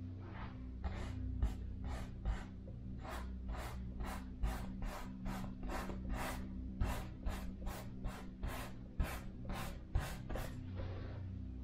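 Paintbrush scrubbing acrylic paint onto a canvas in quick back-and-forth strokes, about two to three a second, over a low steady hum.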